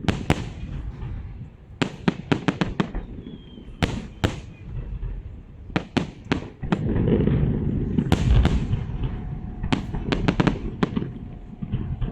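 Fireworks salute: aerial shells bursting in sharp cracks, often several in quick succession, over a low rumble of booms that grows heavier about seven seconds in.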